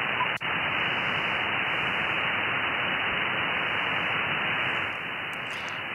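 Steady static hiss of HF band noise from the Icom IC-7610 transceiver's receiver on 17 meters sideband, cut off above about 3 kHz. The hiss drops out briefly about half a second in, as the radio switches bands, and gets a little quieter near the end.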